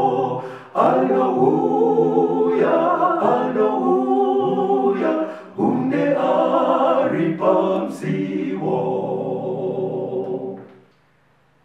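Unaccompanied choir singing a hymn in long held phrases, with brief breaks between lines. The singing fades out and ends near the end.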